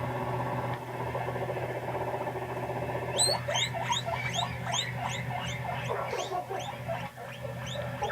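Guinea pig making a fast, low, pulsing purr, then from about three seconds in a run of short, high wheeks, about three a second.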